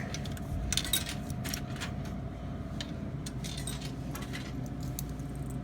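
Coins clinking and clicking as they are fed into a vending machine's coin slot: a scatter of short sharp clinks over the machine's steady low hum.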